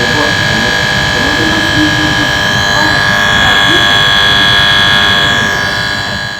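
Voltage-monitoring relay on a 6 kV line humming loudly: a steady, dense electrical buzz with several high whining tones over it, fading out at the very end. The sound is abnormally strong for such a relay, which the electrician puts down either to abnormal voltage or to the relay itself failing.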